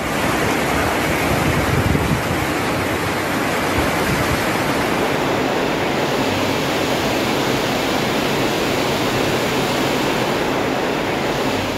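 Rushing floodwater: a loud, steady roar of fast-flowing water with no break, its hiss changing slightly about halfway through.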